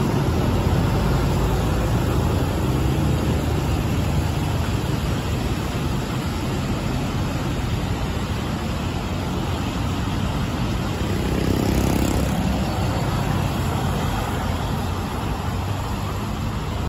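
Road traffic of cars and motorcycles passing on a rain-wet street, a steady wash of engine and tyre noise, with one vehicle passing closer about two-thirds of the way through.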